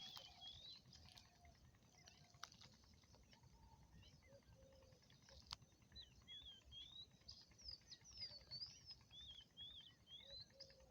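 Near silence, with faint, short bird chirps and twitters in the background that come more often in the second half.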